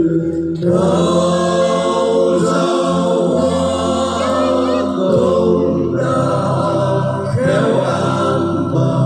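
Christmas carol medley music: choir-like voices holding long notes over steady sustained bass notes, with a brief drop in the music just after the start.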